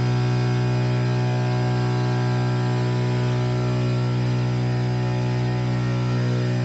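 Electric push propeller of an Archaeopteryx hang glider running at a steady speed, a constant even hum with airflow hiss, heard from the cockpit.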